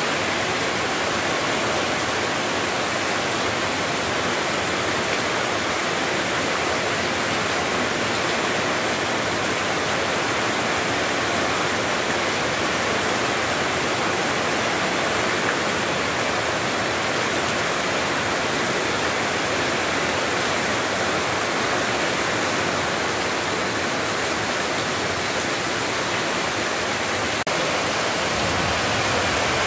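Heavy tropical downpour: a steady, even hiss of rain pelting standing water, ground and leaves.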